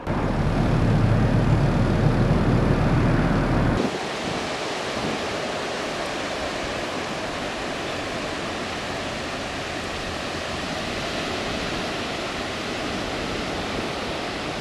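A loud low rumble for about the first four seconds, cutting off suddenly. Then a steady wash of surf breaking on a sandy beach, with wind.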